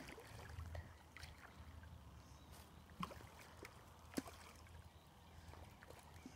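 Near silence: faint splashing and lapping of water as a carp of about 2 kg swims at the surface by the bank, with a couple of faint ticks about three and four seconds in.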